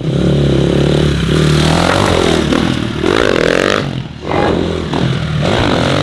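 GasGas dirt bike engine revving hard under throttle as the bike climbs a wooden ramp onto a mini truck's flatbed. The revs rise and fall, with a short drop about four seconds in before the throttle opens again.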